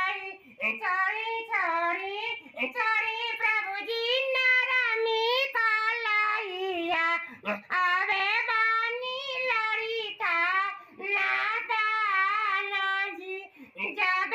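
A man singing a wedding song in a high, woman-like voice, with long wavering held notes in phrases separated by short breaths.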